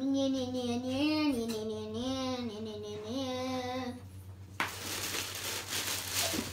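A child hums a wavering tune for about four seconds. Then a plastic bag crinkles loudly as it is pulled off a boxed appliance.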